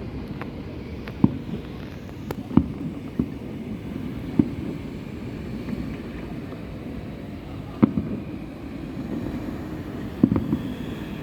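Distant fireworks bursting: sharp, separate bangs at uneven gaps, a few close together near the start and a double bang near the end, over a steady low rumble.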